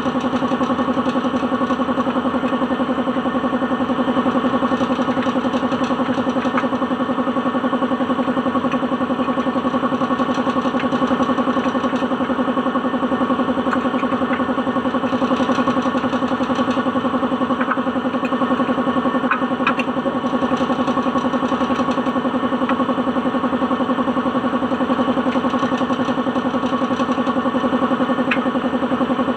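An engine idling steadily at an even pace, with a few faint clicks over it.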